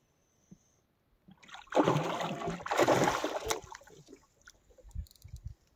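Hooked pike thrashing at the surface beside a boat: a loud rush of splashing for about two seconds, starting about a second and a half in, then a few small knocks and drips.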